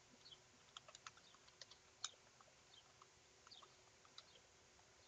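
Computer keyboard being typed on: faint, irregular key clicks.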